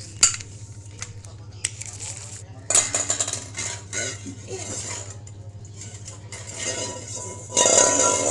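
Scattered sharp clinks and clatter, thickest about three seconds in, over a low steady hum; loud music starts up again near the end.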